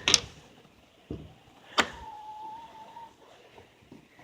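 Chicken coop door being opened: a few sharp clicks and knocks from the latch and door, then a steady squeak from the hinge lasting about a second.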